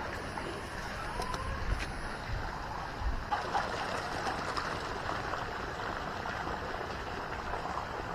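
Steady outdoor background hiss, with a few light clicks and taps of gear being handled about a second in and again around three seconds.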